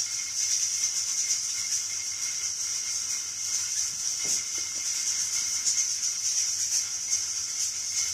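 Mutton sizzling in oil in a karahi, a steady hiss flecked with small crackles.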